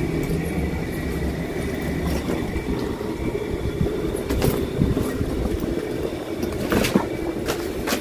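Soft fabric suitcase being opened and handled: rustling of its lining and a few short knocks, over a steady low rumble.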